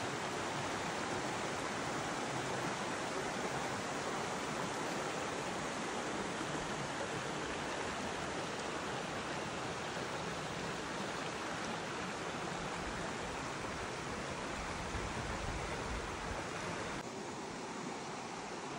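Mountain stream running, a steady rushing hiss of water that drops slightly in level near the end.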